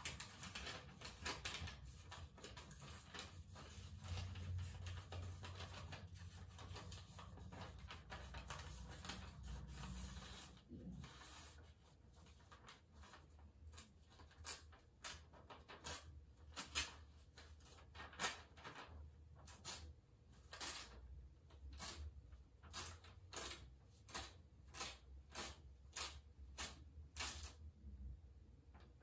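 A sheet of notebook paper being handled and torn, its ragged spiral-bound edge picked off in small tears. For about the first half there is continuous rustling over a low hum; after that come short, crisp snaps of paper, about one or two a second.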